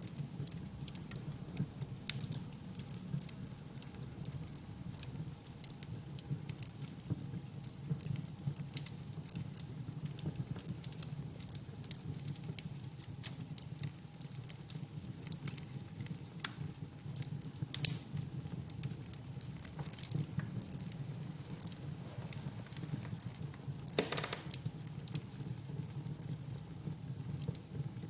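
Wood fire crackling, with irregular sharp pops over a low, steady sound of burning; one pop about two-thirds of the way in is the loudest, and a short cluster of crackles follows a few seconds later.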